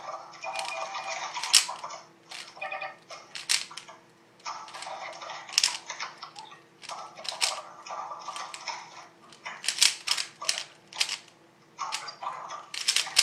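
Plastic 3x3 Rubik's cube being turned quickly during a solve: sharp clacks and scraping of the layers in rapid bursts, several clicks a second, with brief pauses between turn sequences.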